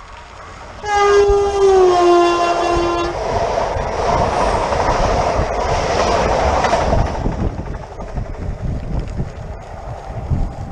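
Renfe Class 447 electric commuter train sounding its horn in one long blast of about two seconds, the pitch dropping partway through as it passes. The train then rushes by with wheel clatter, fading away toward the end.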